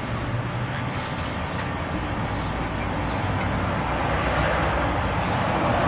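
Steady rumble and hiss of passing street traffic, growing a little louder near the end.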